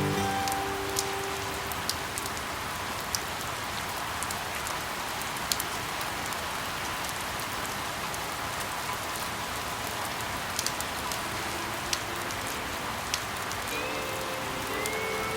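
Steady rain falling, with scattered sharp drops standing out above it. Music fades out about the start, and faint music notes come back in near the end.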